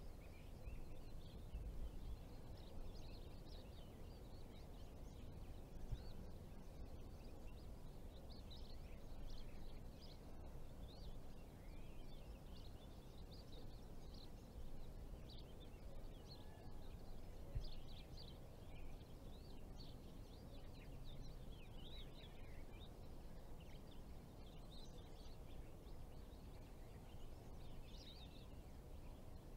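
Faint outdoor ambience: a steady low background rush with small birds chirping in many short calls throughout, and two brief low bumps, about six and eighteen seconds in.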